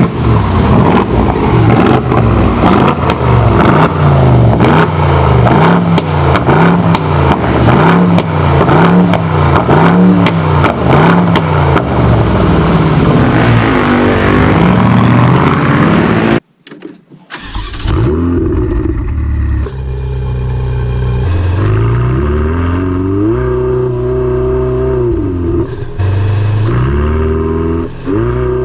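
Two supercar engines revved one after the other. The first is blipped up and down about once a second, with many sharp cracks from the exhaust. After a brief drop-out about 16 seconds in, a second engine revs in longer rises and falls.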